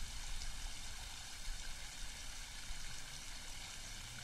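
Water running over a small concrete weir: a steady rushing hiss with a low rumble underneath, picked up by a lightning-connected iPhone microphone set to mid-side stereo.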